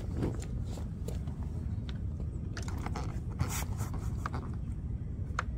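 A rolled dry bag being handled and set onto a motorcycle's rear seat: scattered rustles and scrapes of its stiff fabric, with a sharp click near the end, over steady low background noise.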